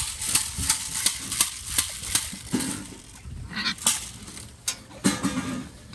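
Pigs grunting and squealing in short calls while being herded, with scattered sharp knocks and clatter.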